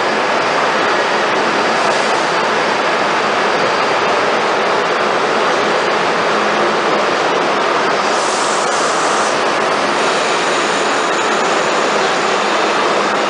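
Steady, loud rushing noise of New York City Subway trains in an underground station, with a short hiss about eight seconds in.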